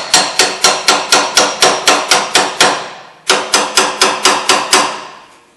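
Hammer tapping lightly and quickly on a new upper ball joint, driving it down into the steering knuckle: about four ringing metal strikes a second, a short break a little past halfway, then a handful more that die away.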